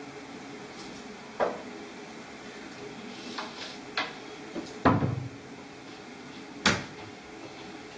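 Four separate knocks and thumps, like a cupboard door or drawer banging. The loudest is a heavier thump a little before five seconds in, with a short low rumble after it.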